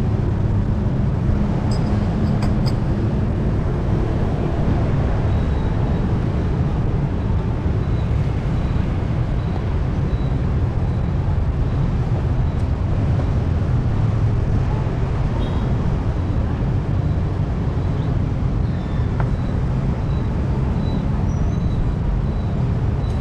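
Steady street traffic noise, a constant low rumble of passing engines, with a few light clicks about two seconds in.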